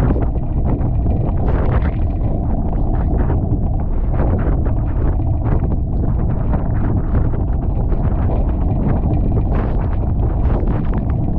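Steady, heavy wind buffeting on the microphone over rushing water, from a Tornado-class sailing catamaran under way.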